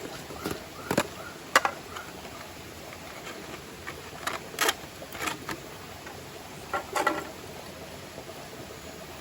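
A few sharp clicks and knocks at irregular moments over a steady background hiss, the loudest about a second and a half in and a cluster near the end.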